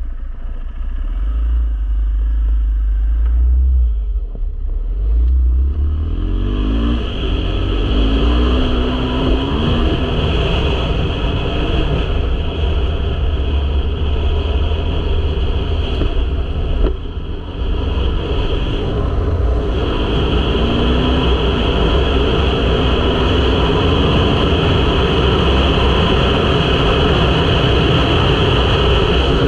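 A 2023 KTM 500 EXC-F's single-cylinder four-stroke engine pulls away and accelerates up through the gears, its note rising again and again. It lets off briefly a little past halfway, then runs steadily at cruising speed.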